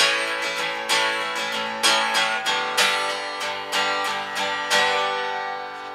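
Acoustic guitar strumming chords at about one to two strums a second. These are the closing strums of a song: the last chord, about five seconds in, is left to ring and fade.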